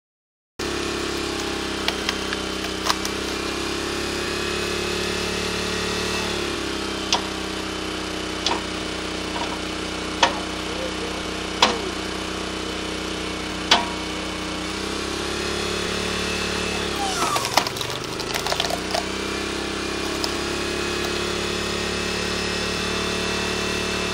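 Honda 5.5 hp single-cylinder four-stroke engine running steadily, driving a homemade log splitter's hydraulic pump, with sharp knocks and cracks of wood every second or two. About two-thirds of the way in, the engine's pitch sags for a few seconds under load while a log crackles and splits.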